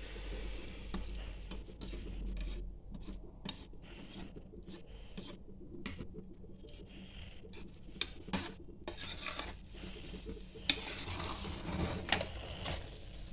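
A wooden stick and a perforated metal ladle stirring and mashing thick, cooked ragi and rice in a pressure cooker, scraping through the mixture, with a few sharp clicks in the second half.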